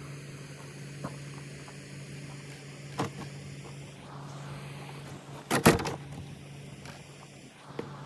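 Steady low mechanical hum with scattered clicks and knocks, the loudest a quick clatter of several knocks about five and a half seconds in.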